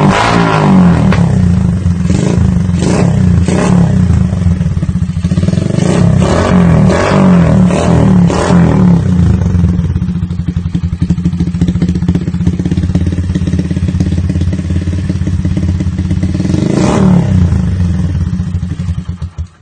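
Motorcycle with a replica Charama9 exhaust idling, blipped several times: revs near the start, between about two and four seconds, between six and nine seconds, and once more about seventeen seconds in. The sound drops off sharply just before the end.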